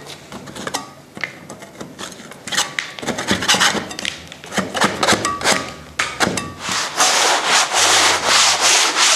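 A putty knife scrapes and chips cracked, dried plaster off a wall in scattered strokes. About seven seconds in, 220-grit sandpaper takes over, rubbed over the plaster surface in quick, even back-and-forth strokes.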